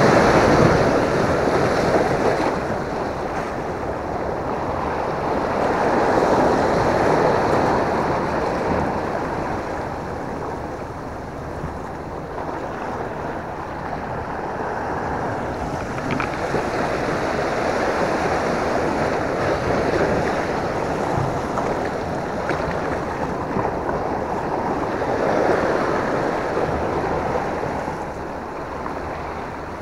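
Sea waves surging and washing against a rocky shore, swelling and easing every several seconds, with wind on the microphone.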